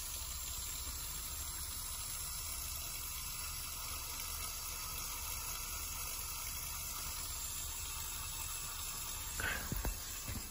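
Steady hiss of water flowing through the clear test pipe and hoses of a pipe-flow rig at about half a gallon per minute. A couple of light knocks come near the end.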